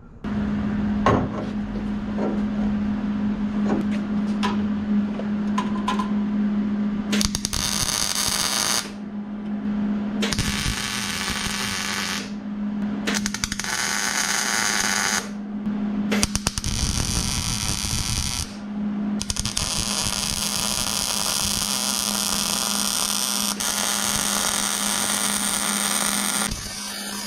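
MIG welder arc crackling as steel tube is welded onto a car's frame rail, in short runs of about two seconds with pauses between, then one longer run of about seven seconds near the end. A steady low hum sits under it throughout.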